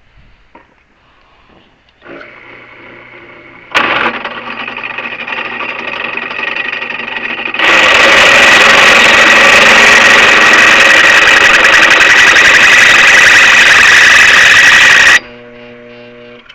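Power drill motor starting up and running steadily, then the bit cutting into metal with a loud, high-pitched screech for about seven seconds while boring the shaft hole. The cutting noise stops abruptly and the motor runs on briefly.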